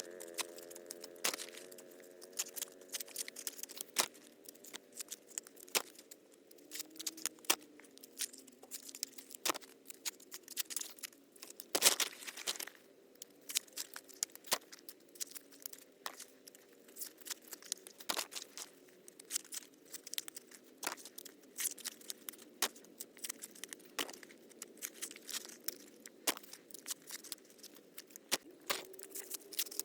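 Dry corn husks being torn and handled by hand: irregular crackling, rustling and tearing, with one louder snap about halfway through.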